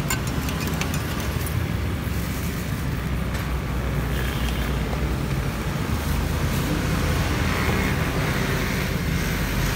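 Steady road traffic passing close by, a continuous low rumble, with a few light metallic clinks of a spoon stirring in a stainless-steel pitcher within the first second.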